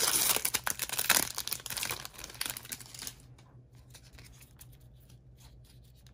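Foil wrapper of a Magic: The Gathering collector booster pack being torn open and crinkled for about three seconds. Then come faint soft clicks of the playing cards being handled and fanned.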